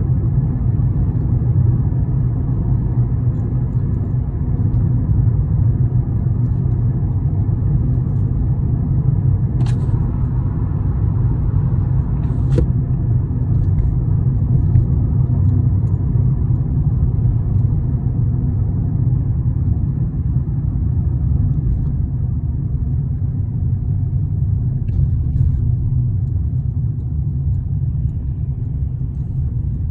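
Steady low road and engine rumble inside a moving car, with two faint clicks about ten and twelve seconds in.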